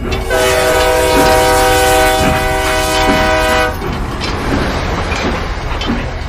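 Train horn sounding one long chord-like blast for about three seconds, then the rumble and clatter of train wheels running over the rails.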